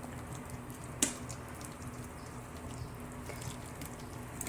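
Escabeche sauce being put over fried tilapia: quiet wet sounds and light clicks of a utensil on the dish, the sharpest click about a second in, over a steady low hum.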